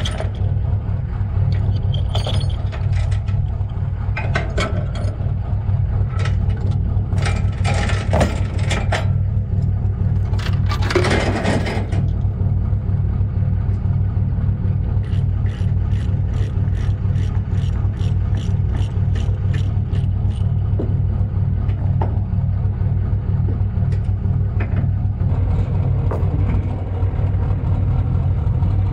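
Skid steer's diesel engine running steadily, with scattered metal clanks and scrapes as the machine is unloaded. In the middle comes a run of even ticks, about two a second.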